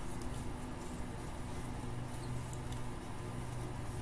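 Room tone: a steady low hum with hiss, and a few faint clicks.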